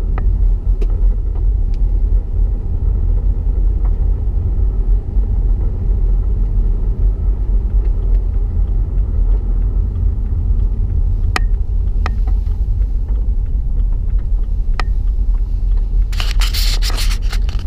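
Steady low rumble of a 2014 BMW 116i driving on a snow-covered road, engine and tyre noise heard from inside the cabin, with a few sharp ticks along the way. Near the end a brief burst of crackling scrape rises over the rumble.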